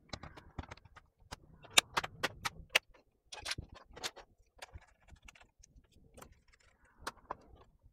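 Plastic bottom cover of an Acer Nitro laptop being pressed onto the chassis, its clips snapping into place: a series of sharp clicks, a quick run of about five near two seconds in, then scattered ones.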